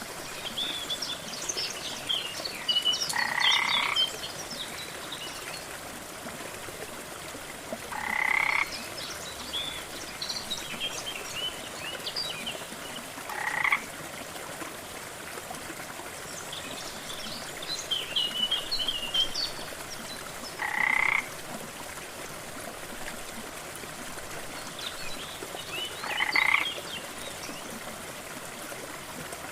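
Frogs calling over a steady rush of waterfall water: a short croak comes five times, about every five seconds, with scattered higher chirping calls around each one.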